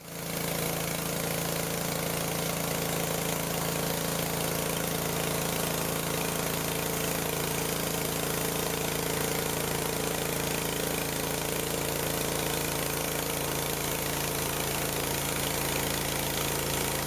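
Homemade bandsaw sawmill's small engine running steadily under load while the band blade cuts through a log.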